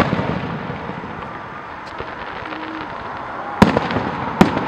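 Aerial firework shells bursting: the rumble of a burst dies away at first, then two sharp bangs come less than a second apart near the end, each trailing off in a rolling echo.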